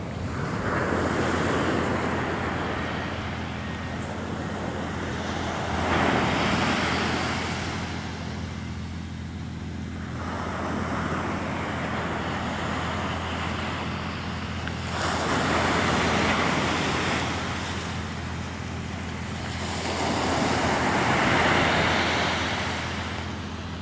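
Ocean surf on a sandy beach: waves breaking and washing in, swelling and fading about every five seconds, over a steady low rumble.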